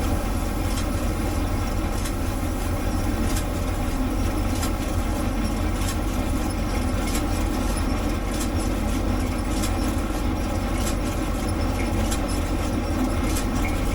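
International Harvester 706 tractor running a John Deere 510 round baler: a steady engine drone with the baler's machinery clattering, marked by a sharp click about every second and a quarter.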